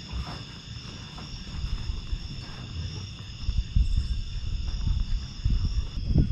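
Night insect chorus, a steady high trilling that does not let up. Under it, low rumbling knocks on the microphone grow louder in the second half.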